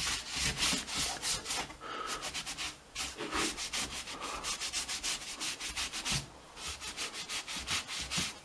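Rapid rubbing strokes on the surface of a painted gypsum decorative-stone panel, about five a second, with short breaks about three and six seconds in.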